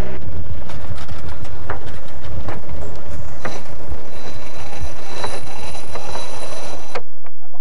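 Mainsail being hoisted on a sailboat: sailcloth flapping and rustling in the wind, with irregular clicks and knocks from the rigging and hoisting gear. A thin high whine runs for a couple of seconds in the second half.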